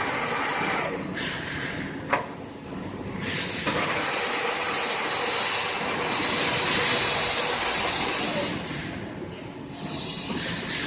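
1K62 screw-cutting lathe running under power during a test run after a major overhaul, its headstock gears and spindle making a steady mechanical noise. The sound shifts in loudness and pitch several times, with a sharp click about two seconds in.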